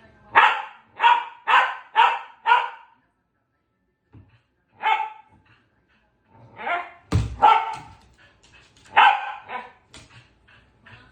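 Pembroke Welsh Corgi barking during ball play: a quick run of five barks, a single bark after a pause, then more barks, with a low thump about seven seconds in.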